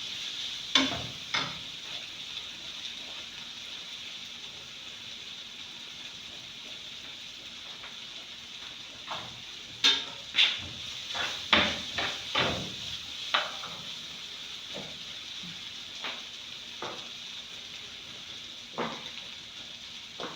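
Shredded chicken and Irish potatoes frying in a pot with a steady sizzle, broken by scattered knocks of a stirring spoon against the pot, with a quick run of them about ten to thirteen seconds in.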